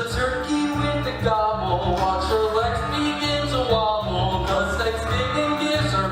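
Stage-musical song: instrumental accompaniment with a steady bass line under a moving melody line that sounds like singing.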